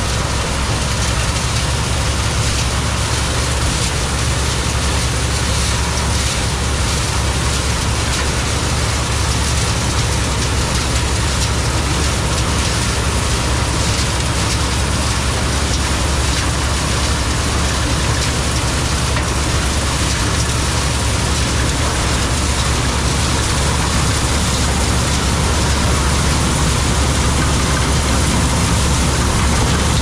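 Combine harvester running steadily: a deep engine drone with a dense, even hiss over it.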